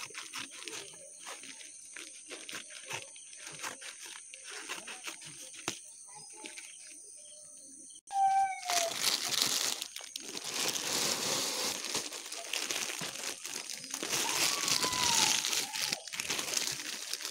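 Paper courier bag and plastic wrapping rustling and crinkling as they are handled and cut open with scissors. The rustling turns abruptly much louder about eight seconds in.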